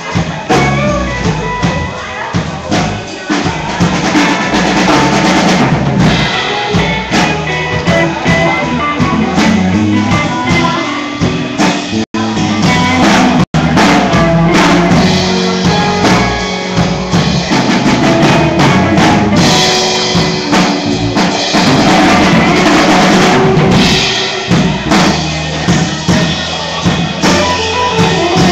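Live band playing rock and roll: drum kit with kick and snare under guitar, loud and dense. The sound drops out for an instant twice, about twelve and thirteen and a half seconds in.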